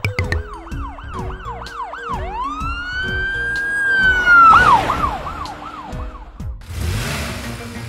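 Police siren sound effect: a string of quick rising-and-falling yelps, then one long drawn-out wail, then a few more quick yelps, over background music. A rushing noise comes in near the end.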